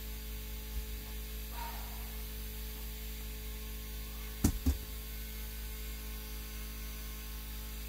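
Wire strippers snapping twice in quick succession on speaker wire, two sharp clicks a little past halfway, over a steady low hum.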